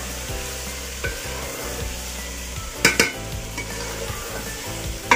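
Chicken pieces frying in a metal pot with a steady sizzle while a metal spoon stirs and scrapes them. The spoon knocks sharply against the pot twice about three seconds in, and again near the end.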